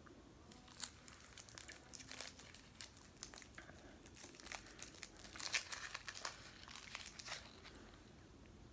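Candy wrapper crinkling as a small chocolate bar is unwrapped by hand: a run of quick crackles, loudest about halfway through, that stops shortly before the end.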